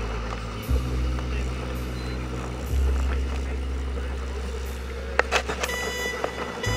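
A small boat's motor running while the inflatable boat is under way, with a heavy low rumble of wind on the microphone. The sound changes abruptly twice, and steady high tones come in near the end.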